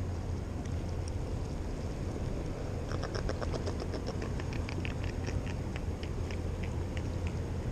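Wind buffeting the microphone as a steady low rumble, with a run of quick, faint clicks from about three seconds in, several a second and thinning out, from handling a hooked small jack and working the jig free.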